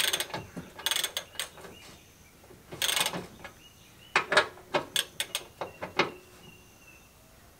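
Hand ratchet wrench clicking in several short runs, then a string of separate sharp metallic clicks, as fasteners are worked under a car.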